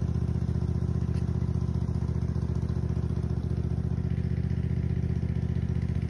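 Lawn mower engine idling steadily, a low even hum with a fast regular pulse.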